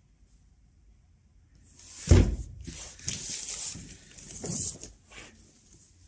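Cardboard box holding a vacuum cleaner being handled and turned around on a tiled floor: a heavy thump about two seconds in, then scraping and rustling of the cardboard with another knock a couple of seconds later.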